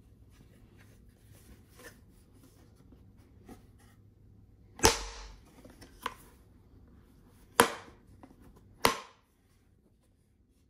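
Spring-loaded hinge clamp of a clip-on sofa-arm tray snapping shut: three loud sharp snaps and one smaller click, with faint handling clicks of the tray before them.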